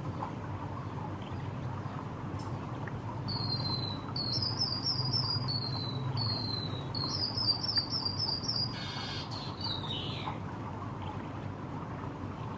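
White-headed munia (emprit kaji) singing a run of high, thin phrases, some falling and some of quick repeated notes, for about five seconds, ending with a short downward slide. A steady background hiss runs underneath.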